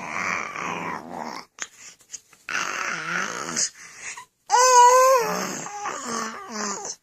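Baby vocalizing in a string of short bursts: breathy, noisy sounds at first, then a high-pitched squeal a little past halfway, followed by shorter babbling sounds.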